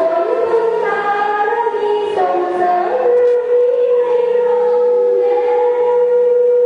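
Student choir singing a Thai devotional song in harmony. From about halfway in, one note is held steadily.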